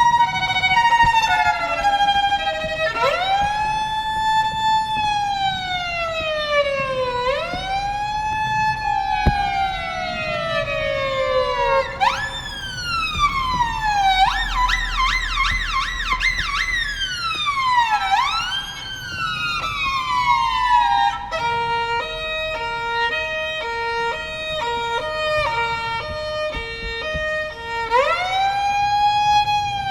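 Violin imitating emergency-vehicle sirens with sliding glissandi. It first holds two alternating high-low notes, then plays slow rising-and-falling wails about four seconds each and a fast warbling yelp in the manner of an American Whelen siren. About two-thirds through it switches to a quick two-note hi-lo pattern like a European police siren, and a wail returns near the end.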